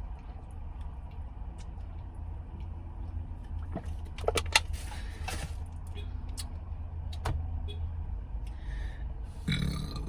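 Steady low rumble of a car cabin, with scattered small clicks. A brief cluster of rustles and clicks comes about four to five seconds in.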